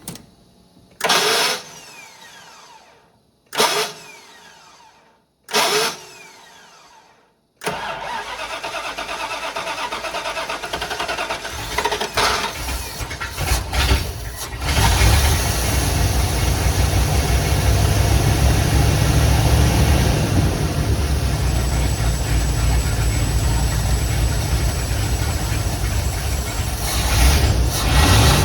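Dodge Ramcharger's V8 being started on a freshly rebuilt two-barrel Holley 2280 carburetor. Three short loud bursts come first; about eight seconds in it turns over, catches about fifteen seconds in and settles into a steady run, with a brief rev near the end.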